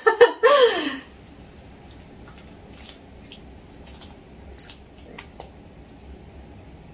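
Homemade white slime being stretched and kneaded between the hands, giving a few faint sticky squelches.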